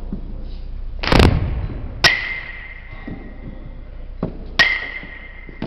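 Batting practice: a baseball bat striking pitched balls. There are two sharp, ringing pings about two and a half seconds apart, and a heavier thud about a second in.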